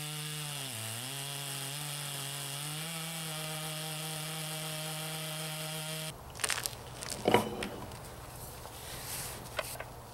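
Chainsaw on a chainsaw mill running steadily under load as it rips a white oak log, its pitch dipping briefly about a second in and then recovering; it cuts off suddenly about six seconds in. After that come scattered knocks and scrapes, the loudest a single knock shortly after, as wet slabs are levered apart.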